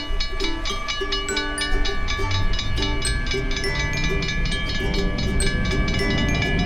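Train running past with a low rumble that swells partway through, mixed with evenly spaced sharp ticks and pulsing tones.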